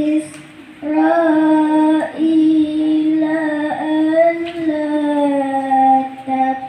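A boy qori reciting the Qur'an in the melodic tilawah style, holding long ornamented notes that slide slowly between pitches. The phrase starts about a second in after a short breath and ends just before the close.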